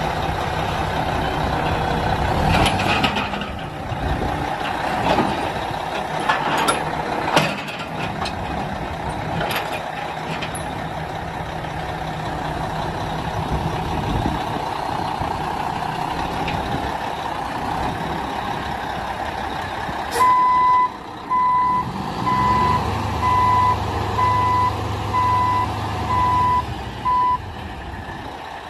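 A 1999 Mack dump truck's 12.0L diesel engine running steadily, with a few sharp clacks in the first ten seconds. About two-thirds of the way in, a backup alarm beeps about eight times, roughly once a second, over a deeper engine note.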